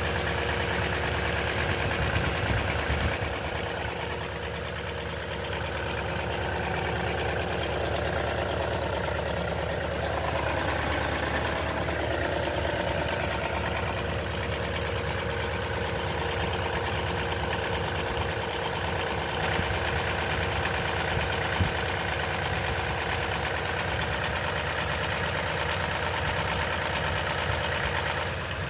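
2010 Toyota Tundra engine idling steadily with a fine, continuous rattle, the noise the owner puts down to the timing chain on a cold start.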